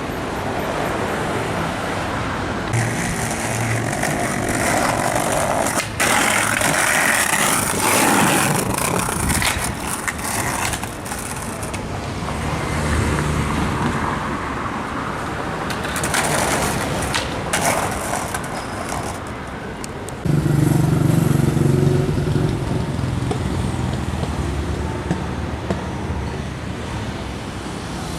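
City street traffic: vehicles passing one after another in a steady wash of noise, with a low engine hum getting louder about twenty seconds in.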